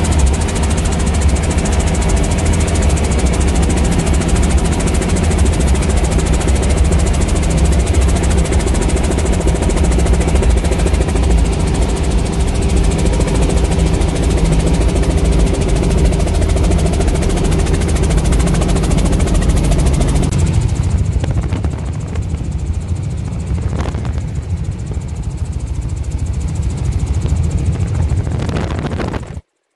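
Helicopter engine and rotor noise heard from inside the cabin in flight, a loud steady drone. About 20 seconds in it becomes quieter and duller, and it cuts off just before the end.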